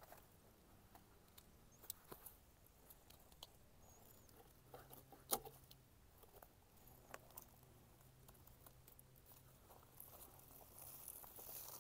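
Mostly near silence, with sparse faint rustling and small clicks of packaging and rose seedlings being handled, and one sharper click about five seconds in.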